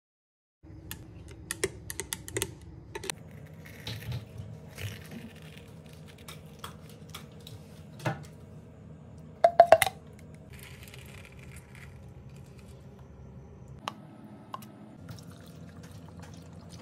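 Kitchen handling sounds: scattered clicks and taps as melon seeds are scooped out of a halved melon into a plastic jug, with a louder clatter of several quick taps about halfway through. Near the end, water is poured into the jug over the seeds. A faint steady hum runs underneath.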